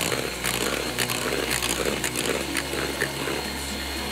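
Electric hand mixer running steadily, its beaters whipping a thick butter, sugar and egg cake batter in a glass bowl.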